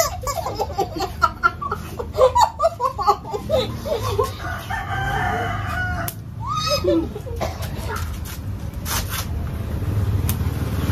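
Rubber chicken squeak toys squawking as they are bitten and squeezed: a flurry of quick squeaks in the first few seconds, then one long held squawk about halfway through and a shorter falling one just after.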